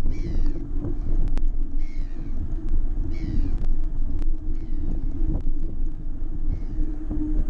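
Steady low rumble of wind and road noise on a bicycle-mounted action camera while riding, with occasional sharp clicks and rattles. Over it, a short high-pitched call repeats every second or two.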